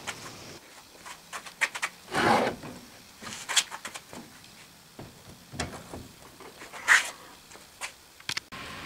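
Handling of a metal sand-casting molding flask: scattered sharp clicks and knocks as the flask parts are moved and the cope is set onto the drag, with a short scrape of sand about two seconds in.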